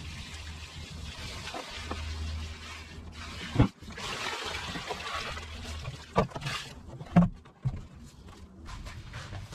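Water pouring and splashing out of a black plastic tub as it is tipped over and emptied onto the ground, with a few sharp knocks from the tub being handled, the loudest about three and a half seconds in and again about seven seconds in.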